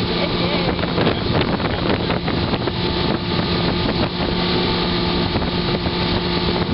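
Outboard motorboat running steadily at speed, with wind noise on the microphone.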